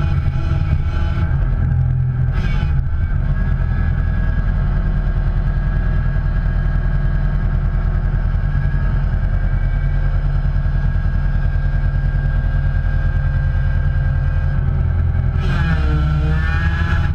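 Motor vehicle engine running steadily with a dense low rumble. A brief wavering higher sound with hiss comes in near the end.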